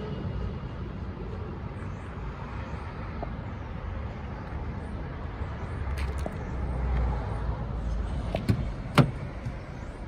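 Steady low outdoor rumble, then near the end a few clicks and one sharp, loud click as the Mini Cooper S's driver's door handle is pulled and the latch releases to open the door.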